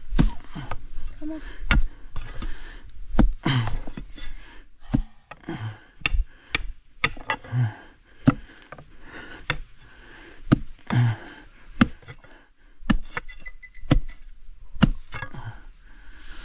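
Hand tool striking rock: an irregular series of sharp strikes, roughly one a second.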